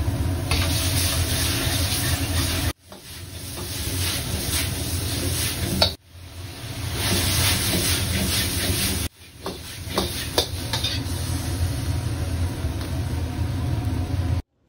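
Stir-fry of meat and okra sizzling loudly in a hot pan over a low rumble, cut off sharply and restarted three times. A few sharp scrapes or knocks come about ten seconds in.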